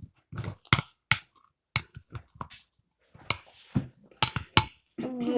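A spoon knocking and clinking against a mixing bowl while stirring runny homemade slime, in several sharp, irregular knocks, three in quick succession a little past four seconds in.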